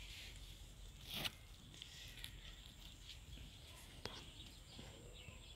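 Faint outdoor background with a brief rustle about a second in and a single sharp click about four seconds in.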